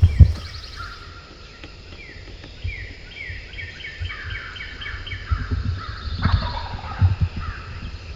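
Songbirds calling in rapid runs of short chirps, with a wild turkey gobbling as a falling rattle of notes about six seconds in; the hunters take it for a jake, a young male. Dull low thumps on the microphone come and go.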